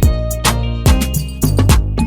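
Background music with a steady drum beat and bass line, in a funk or Afrobeat style.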